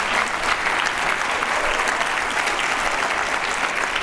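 Sustained applause from a large seated audience clapping after a speech.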